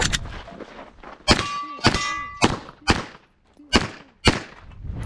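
Six pistol shots at uneven spacing, each a sharp crack. The first two are followed by a short metallic ring, as from steel targets being hit.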